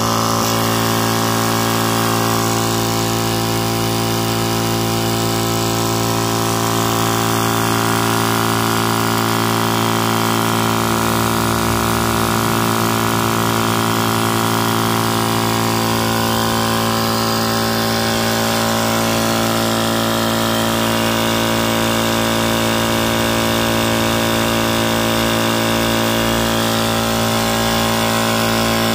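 Tuxing portable water-cooled high-pressure PCP air compressor running steadily under load, a constant motor-and-piston hum as it pumps toward 3,000 PSI.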